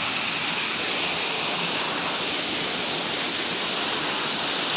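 Waterfall pouring over rocks into a mountain stream: a steady, unbroken rush of falling water.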